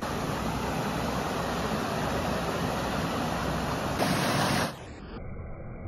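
Water pouring steadily over a canal lock's stepped bypass weir, running high with rainwater. The sound turns quieter and duller about five seconds in.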